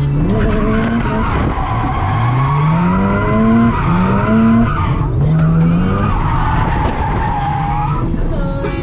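A drift car's rotary engine revving hard, its pitch climbing again and again as the throttle is worked through the drift, with tires squealing and skidding over it.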